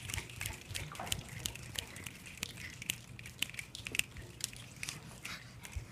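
Scattered clapping from a small audience: sharp, irregular claps, several a second, over a faint low hum.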